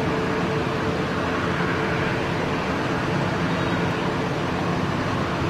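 Airbus A321neo's jet engines running at taxi power as the airliner rolls along the runway: a steady rush of noise with a low, even hum.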